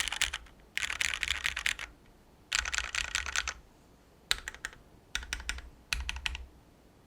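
Typing on a Vulcan X KBDfans MAJA custom mechanical keyboard built with retooled Cherry MX Black switches in a brass plate, Poron foam dampening and GMK keycaps: six bursts of rapid keystrokes separated by short pauses, stopping about six seconds in.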